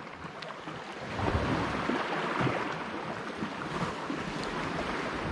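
Sea waves washing against the shore rocks, a noisy rush that swells about a second in and holds.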